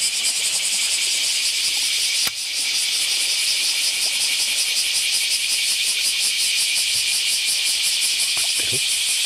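Chorus of cicadas buzzing steadily from the summer riverbank vegetation, a high dense drone with a fast pulsing texture. A sharp click breaks it briefly a little over two seconds in.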